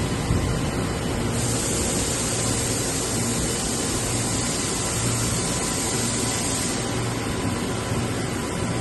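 AWEA LP4025Y bridge-type CNC machining centre running, a steady mechanical hum with a high hiss that comes in about a second and a half in and stops about seven seconds in.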